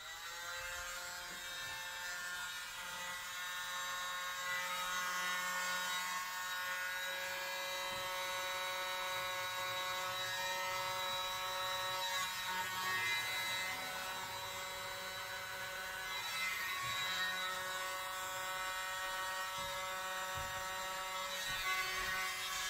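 Miniature handheld electric blower running with a steady motor whine, rising in pitch as it spins up at the start and then holding steady.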